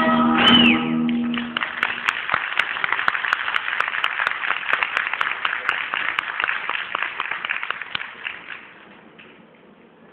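Mexican folk dance music with guitars ends about a second and a half in, and audience applause takes over, fading out near the end.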